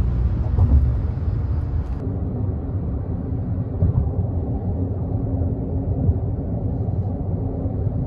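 Steady low rumble of road and engine noise inside a Honda N-WGN kei car cruising at highway speed. The higher hiss above the rumble drops away about two seconds in.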